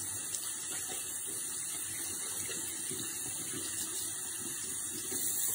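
Bathroom faucet running steadily into a sink, with hands being washed under the stream.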